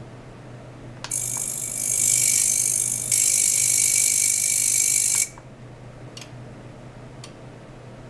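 Ultrasonic oscillation driven into a water tank: a loud hiss with a steady high whine switches on about a second in, grows louder in two steps, and cuts off abruptly about five seconds in. A few faint clicks come before and after it.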